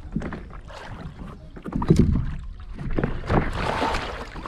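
A person climbing aboard an inflatable stand-up paddle board in shallow water: water sloshing and splashing, with knocks and thumps against the board, the loudest about two seconds in.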